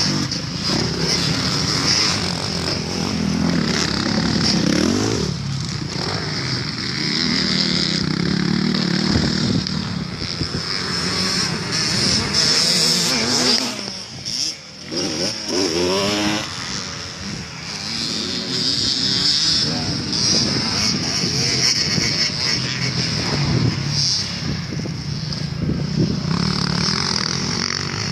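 Dirt bike engines revving up and down as the bikes ride around a motocross track, the pitch rising and falling through the throttle and gear changes. About halfway through the sound drops away briefly, then an engine revs back up in a rising sweep.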